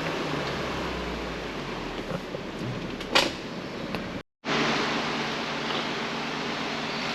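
Steady road and engine noise inside a moving Jeep, with a short sharp knock about three seconds in. The sound drops out briefly just after four seconds.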